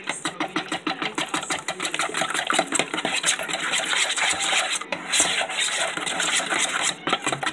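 A metal fork beating an egg into a thin wet batter in a bowl, clicking against the bowl in rapid, even strokes, several a second.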